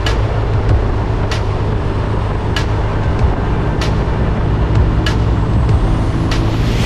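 BMW R1250RT motorcycle on the move: a steady low rumble of engine and wind, with a sharp tick about every second and a quarter.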